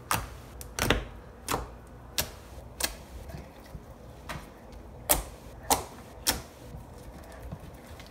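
Fingers poking borax-activated slime, each poke giving a short, sharp wet pop; about ten pops come a little under a second apart.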